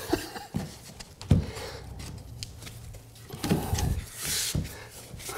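Click-lock engineered hardwood planks being handled and pressed into place on foam underlayment: wood rubbing and scraping, with scattered light knocks and a dull thump about a second in.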